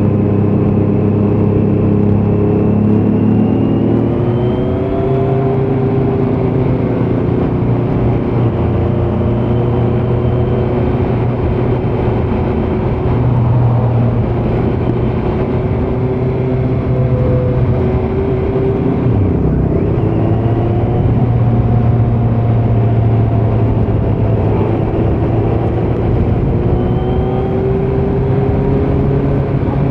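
2018 Kawasaki Z900's inline-four through an open Leo Vince muffler with no dB killer, running under way. Its pitch climbs a few seconds in, breaks briefly about two-thirds through, and rises again near the end.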